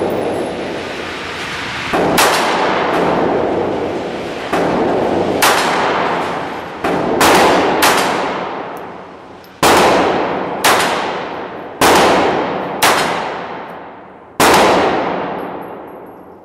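Phoenix Arms HP22 .22 LR semi-automatic pistol fired about ten times at an uneven pace. Each sharp crack is followed by a long echo that dies away, the reverberation of an indoor range.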